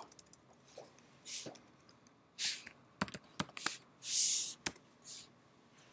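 Computer keyboard keystrokes while a file name is typed: a handful of sharp clicks about three to four seconds in, with a few short hissing sounds between them.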